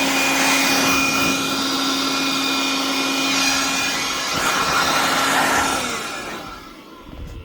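Makita DUC353 cordless electric chainsaw running steadily with a constant motor whine and chain hiss, then released near the end and spinning down.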